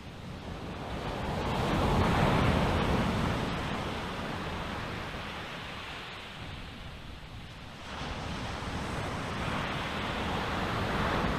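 Ujjayi (ocean) breath: slow breathing through a slightly constricted throat, giving an even hiss like ocean waves. One long breath swells and fades over about seven seconds, then a second breath starts abruptly about eight seconds in and carries on.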